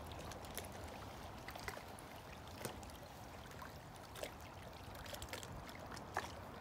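Faint, steady rush of a stream flowing, with scattered light clicks and ticks over it.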